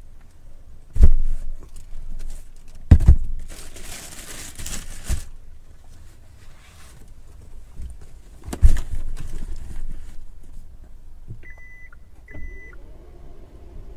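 Gear being loaded into an SUV's cargo area: a few heavy thumps as a hard cooler and bags are set down, with a rustle between them. Near the end the power tailgate gives two short warning beeps and its motor starts to hum as it begins to close.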